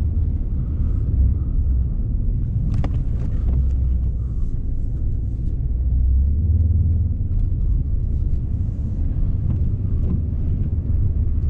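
Steady low rumble of a car driving on a wet road, heard from inside the cabin, with a brief click about three seconds in.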